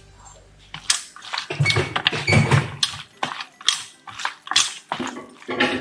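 Raw chicken pieces being squeezed and turned by hand in a stainless steel bowl: an irregular run of wet squelches and slaps.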